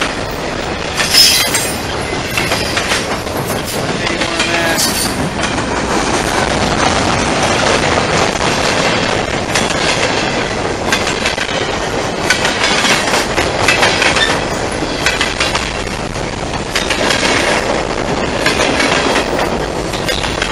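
Train passing at close range: a loud, continuous rumble with the clickety-clack of wheels over rail joints, and several spells of high-pitched wheel squeal.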